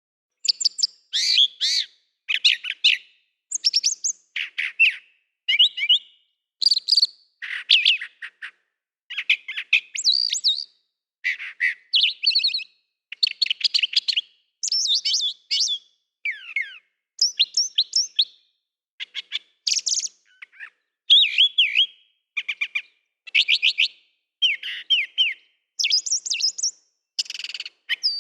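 Songbird chirping and singing in short, quick warbling phrases, roughly one every second, with clean silence between them.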